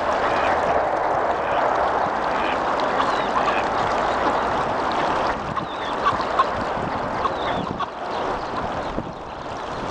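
Mallard ducks quacking and trumpeter swans honking over a steady noisy background; a couple of short, sharp calls stand out about six seconds in.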